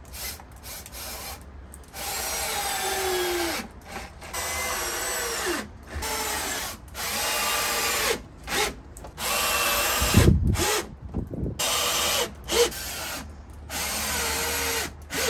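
Cordless drill driving screws into wooden boards: repeated runs of a second or two each with short pauses, the motor pitch rising and falling as the trigger is squeezed and eased, one heavier run with a low thud a little past the middle.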